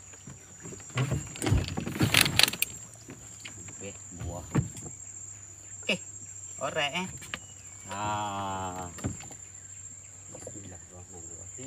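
Knocks and rattles of a fishing longline being hauled in and its hooks handled on a small boat, loudest about two seconds in, over a steady high insect drone. A short wavering call sounds about eight seconds in.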